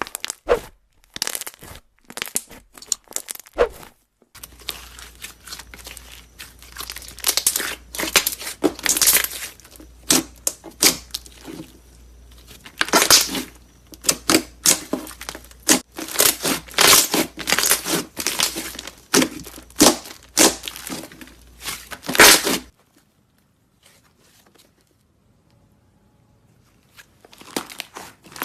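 Slime being squeezed, stretched and pulled apart by hand: a dense run of sticky tearing and crackling sounds that stops for a few seconds near the end and then starts again.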